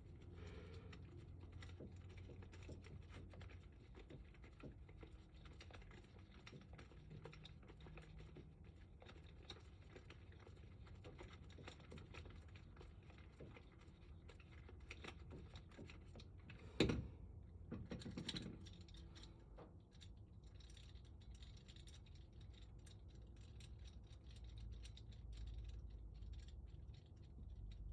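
Faint small clicks and scratches as long screws are worked out of a lock, with one sharp knock about 17 seconds in and a few louder clicks just after it.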